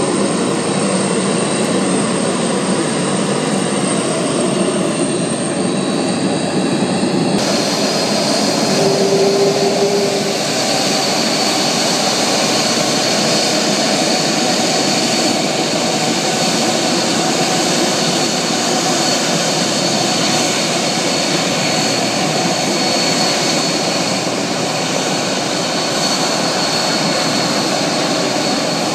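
Boeing 747-400 jumbo jet's four turbofan engines running at taxi power: a steady jet rush with a high whine. The sound changes abruptly about seven seconds in, after which the high whine is clearer.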